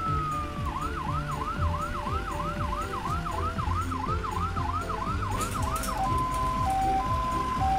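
Cartoon ambulance siren: a fast rising-and-falling wail, about two and a half cycles a second, that switches about six seconds in to an alternating two-tone hi-lo pattern.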